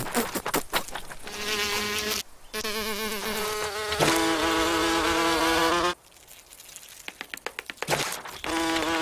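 Ladybird wings buzzing in short flights, a wavering buzz a second or so in, then a louder, higher, steadier buzz from about four to six seconds, and a brief buzz near the end. Quick light clicks fall between the buzzes.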